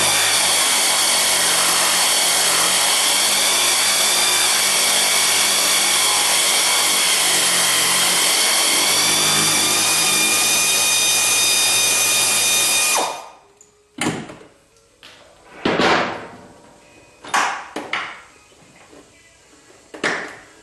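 Pneumatic air wrench running steadily for about thirteen seconds, spinning out a Corvette body mount bolt, with a slight dip in pitch midway. It then stops, and a few short knocks follow.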